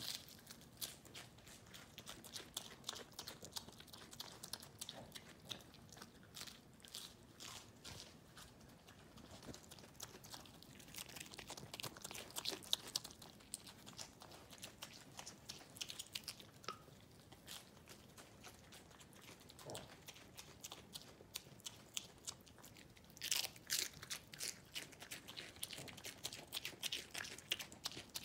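Small pig chewing and crunching lettuce leaves: a steady run of short crisp crunches. There is a thinner spell past the middle, then louder crunching near the end.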